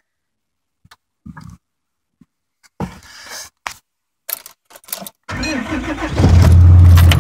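A few faint clicks and knocks, then about five seconds in a starter cranks a 2010 Cummins 6.7 inline-six diesel. It catches within a second on a 23 °F cold start and settles into a loud, steady idle through a 5-inch turbo-back straight-pipe exhaust.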